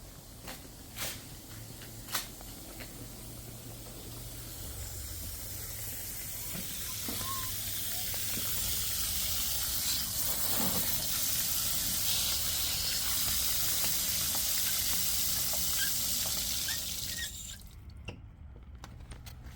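Water hissing and rushing under pressure, building gradually over several seconds, holding steady, then cutting off suddenly near the end. A couple of light knocks come in the first few seconds.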